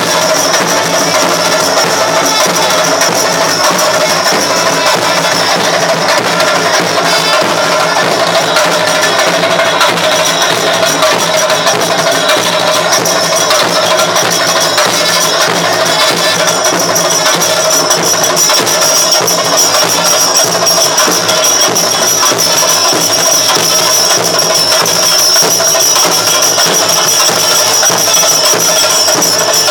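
Loud, continuous Kerala temple festival percussion: drums with cymbals clashing steadily, played without a break.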